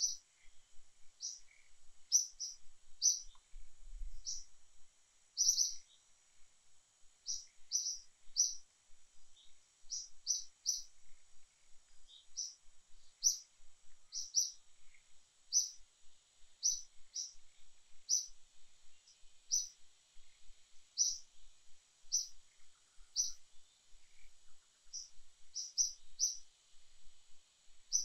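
A bird chirping: short high chirps repeated irregularly about once a second, sometimes in quick pairs, over a steady faint high-pitched drone.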